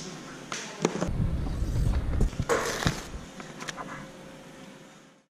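Handling noise: scattered clicks and knocks with rubbing and a low rumble, fading away near the end.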